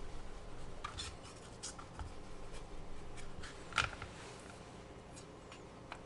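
Knife paring a thin continuous sheet off a daikon radish: faint, scattered scratchy slicing sounds, with one louder crisp cut about four seconds in.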